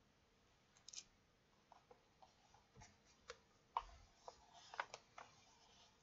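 Near silence with about a dozen faint, scattered small clicks and light rustles, like soft handling noise.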